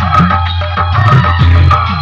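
Loud Indian DJ dance mix with a heavy, regular bass beat, played through a rig of horn loudspeakers being sound-checked.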